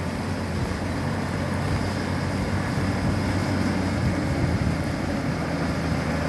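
Diesel lorry engine running steadily as the truck drives through floodwater covering the road, with the wash of water around its wheels.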